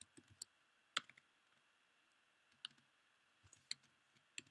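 A few faint, separate keystrokes on a computer keyboard, about five clicks spaced unevenly over the few seconds, against near silence.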